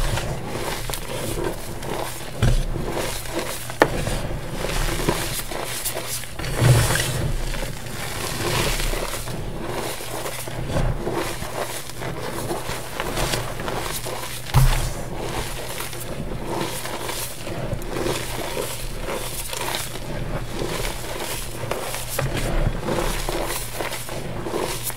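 Hands digging into loose gym chalk powder and crumbling clumps of pressed chalk between the fingers: a continuous soft crunching and crackling, with a few louder crunches.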